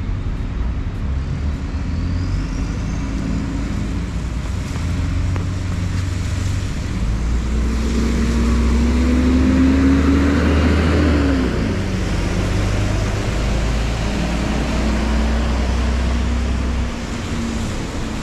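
Double-decker bus driving past close by, loudest about ten seconds in: a low engine drone and a whine that rises and then falls, with tyres hissing on the wet road. Steady traffic noise runs underneath.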